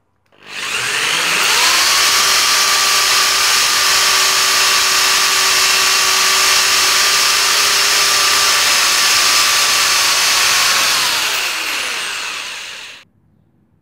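Electric drill driving a right-angle drill adapter, its bit boring into a metal plate. The motor spins up about half a second in with a rising whine, runs steadily for about ten seconds, then winds down and stops near the end.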